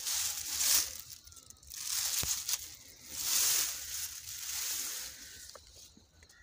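Rustling and crunching of rice stalks and dry grass as someone pushes through them close to the microphone, in four or five swells with a single sharp click near the middle.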